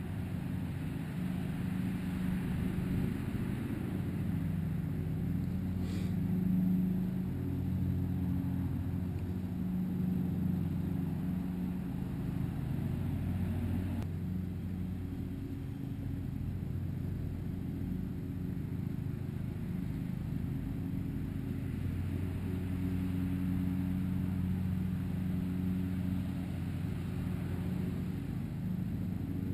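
An engine running steadily, its low hum swelling and fading over several seconds, with a single brief click about six seconds in.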